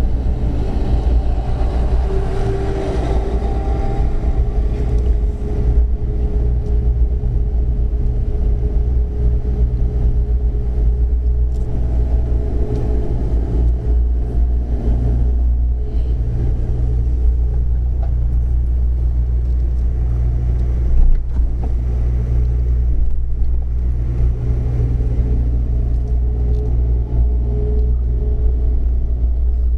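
Steady low engine rumble with a constant hum running over it.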